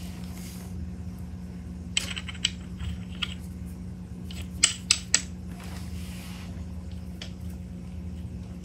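A handful of small, sharp metallic clicks and taps as a pressure gauge is screwed by hand into an air rifle's receiver, with a pair about two seconds in and a quick cluster about halfway. A steady low hum runs underneath.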